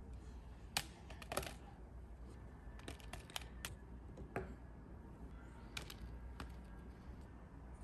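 A metal fork scooping ice cream from a paper tub and tapping it onto a ceramic plate: scattered light clicks, taps and scrapes, the sharpest about a second in.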